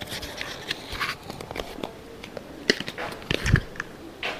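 A small cardboard box being handled and a makeup stick slid out of it: light rustling with many small clicks and taps, and a few louder knocks about three seconds in.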